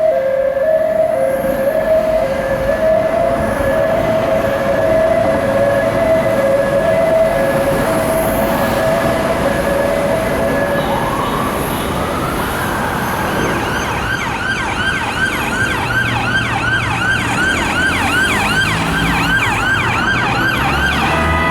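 British emergency vehicle's electronic two-tone siren alternating between a high and a low note, then switching about halfway through to a fast yelp that sweeps up and down about three times a second. Steady road noise underneath.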